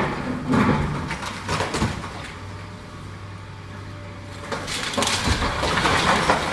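Excavator demolishing an old masonry building: a sharp crash right at the start and several knocks over the next two seconds, then a longer spell of crumbling, falling rubble in the second half, over the steady hum of the excavator's engine.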